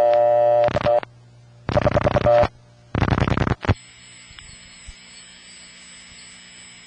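Telephone line audio from a Bell System step-by-step office. A buzzy dial tone gives way to three bursts of dial-pulse clicks as the prefix 266 is dialed, one short and two longer. After the third digit the line settles into a steady hiss with a faint high whine: the carrier noise of the connection out to the distant step office.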